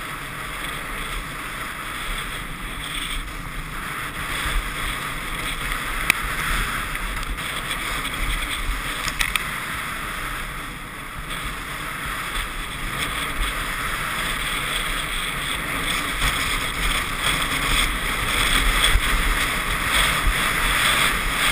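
Steady rushing noise of skiing fast downhill: skis hissing and scraping over packed snow, with wind buffeting a helmet-mounted camera. It grows louder over the last few seconds.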